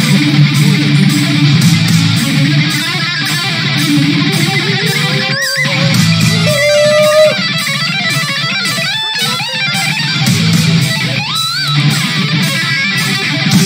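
Heavy metal song playing: an electric guitar solo of fast lead lines with bends and pitch glides over distorted rhythm guitar and drums.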